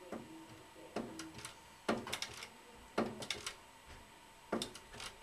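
Small folding table rocking under people's hands, its legs knocking on the floor with a sharp knock about once a second, some followed by a short rattle.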